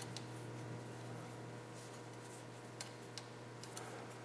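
Hex key turning small socket-head cap screws in an aluminium hub mount, tightening them down: faint metal scraping with a couple of light ticks about three seconds in.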